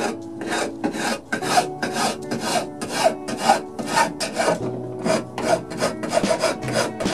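Wood being worked by hand with an abrasive, in steady back-and-forth rubbing strokes at about two a second.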